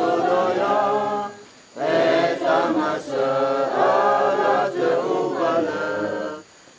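A group of people singing a hymn together, unaccompanied, in long sung phrases broken by a short breath pause about a second and a half in and another near the end.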